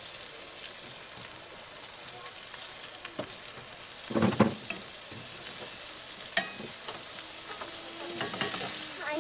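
Meat patties frying in a pan on a camp stove: a steady sizzle. A brief voice cuts in about four seconds in, and there is a sharp click a little after six seconds.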